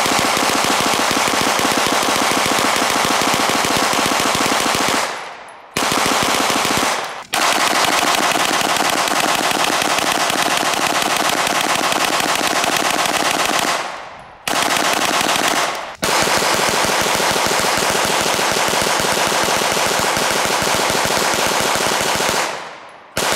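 Hand-cranked 9mm Gatling gun firing rapid full-metal-jacket rounds in long strings, with short breaks about five, seven, fourteen and fifteen seconds in. The firing stops shortly before the end.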